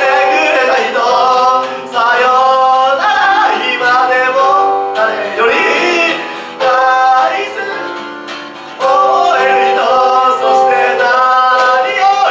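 Live acoustic band music: a harmonica lead melody over acoustic guitar and keyboard. The playing thins out and drops in level in the middle, then the full band comes back in about nine seconds in.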